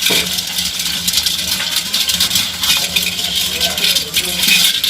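Crabs moving about, making a dense, continuous crackle of small clicks and rattles over a steady low hum.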